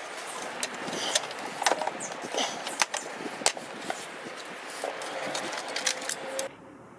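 Side cutters snipping nylon cable ties, with clicks and rattles from the hard plastic air-intake duct being handled and taken apart: a string of sharp clicks and knocks over a hiss. The sound cuts off suddenly about six and a half seconds in, leaving only a faint hiss.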